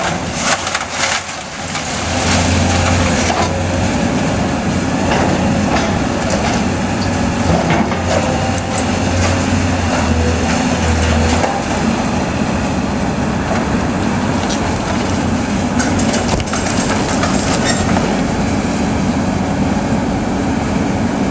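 Hyundai tracked excavator's diesel engine running under load as it tears into a wood-frame building, its low note surging in spurts during the first half. Timber cracks, splinters and crashes down now and then, with bursts of cracking near the start and again about three-quarters through.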